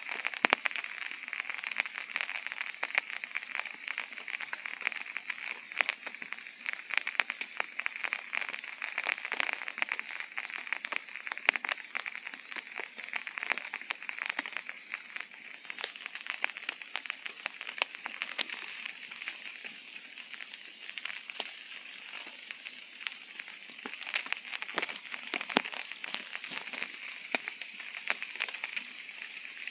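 Rain falling on a tent's fabric, heard from inside: a dense, steady patter of many separate drop ticks over a hiss of rain.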